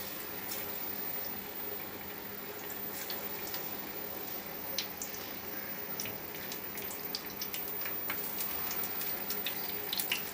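Batter-coated eggplant (brinjal) pakoras deep-frying in hot oil in a wok: a steady sizzle with scattered crackles and pops.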